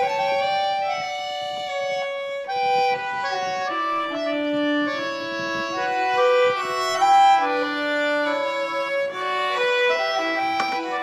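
Background music: a fiddle playing a melody, one note after another.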